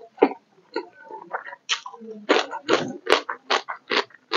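A person chewing a mouthful of rice and smoked pork with the mouth open close to the microphone: short wet smacks, sparse at first, then a quick run of about four a second.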